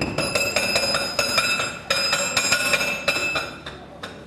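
Excavator-mounted hydraulic breaker hammering through the rock of a tunnel face: a rapid, even run of metallic blows with a ringing tone. It breaks off briefly near two seconds in, then stops about three and a half seconds in as the face is broken through.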